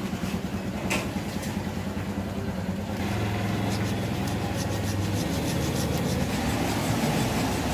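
Refrigerator compressor running with a steady low hum, which gets stronger about three seconds in; light scraping is heard over it in the first few seconds.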